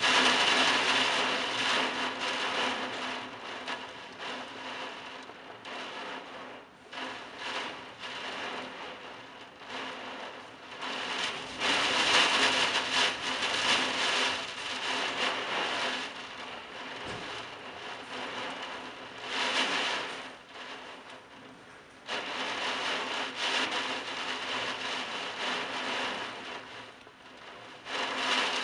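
Heavy wind-driven rain in a storm: a rushing hiss that surges and eases over and over with the gusts.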